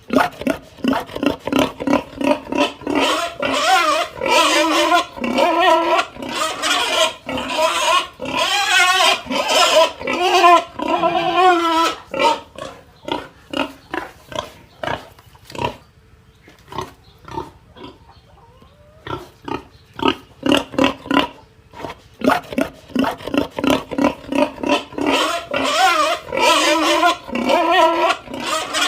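Pig crying out in rapid, short, pitched calls, several a second, with a quieter lull around the middle before the calls pick up again.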